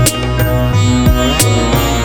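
Background instrumental music: a melody over percussion, with a few sharp hits.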